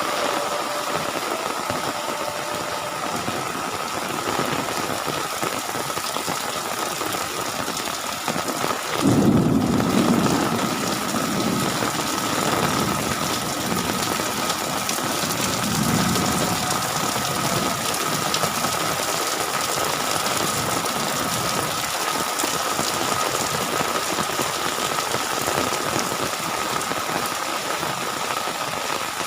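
Heavy rain pouring steadily, with a faint steady high hum under it. About nine seconds in a loud low rumble swells up for a couple of seconds, and a weaker one follows around sixteen seconds in.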